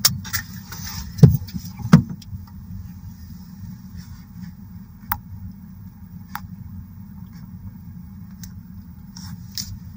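Truck idling while parked: a steady low engine hum heard from inside the cab. There are a few sharp knocks in the first two seconds and a handful of fainter ticks later on.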